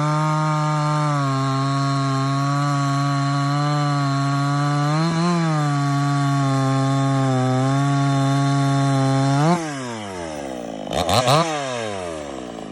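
Cheap chainsaw engine running at a steady speed, with a short rise in pitch about five seconds in. After about nine and a half seconds it winds down, gives one brief rev near the end, and dies away.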